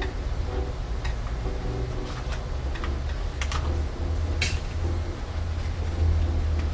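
Irregular small clicks and taps of laptop plastics and parts being handled during disassembly, over a steady low hum.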